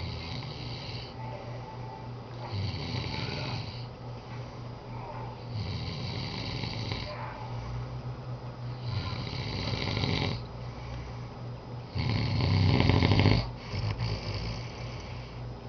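A man snoring in his sleep, about five snores spaced roughly three seconds apart, the loudest near the end.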